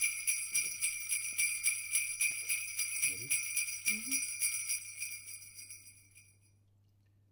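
Jingle bells shaken in a steady rhythm, fading out about six seconds in.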